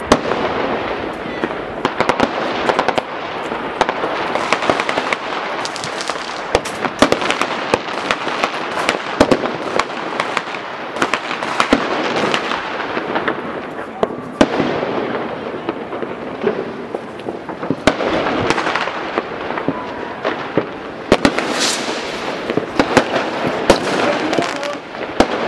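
Many fireworks going off at once: a continuous dense crackle of firecrackers with frequent sharp bangs from rockets and bursts.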